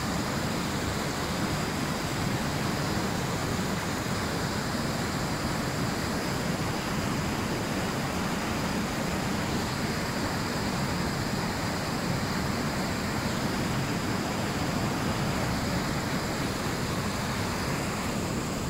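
Steady rush of river water pouring over a low concrete weir and churning white in the channel below.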